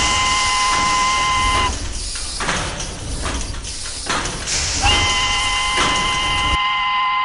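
Steam locomotive whistle blowing a chord of several steady tones over hissing steam. One blast ends just under two seconds in, a few seconds of hissing chuffs follow, and a second blast starts about five seconds in.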